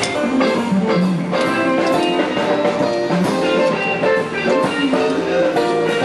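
Live band music with drums and a busy, steady beat.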